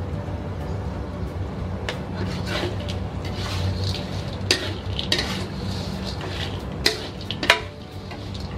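Metal spatula scraping and clattering against a metal wok as fried tofu and tempeh are stir-fried, with the food frying and a steady low hum underneath. The sharpest scrape comes about seven and a half seconds in.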